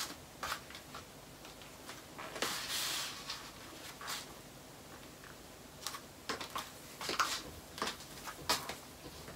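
Light rustling and scattered soft taps and clicks from a person moving and posing, with a longer rustle about two and a half seconds in and a run of sharper clicks near the end.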